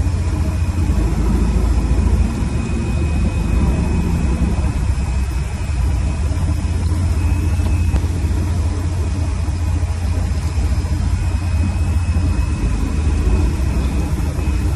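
Fishing boat's engine running with a steady low drone.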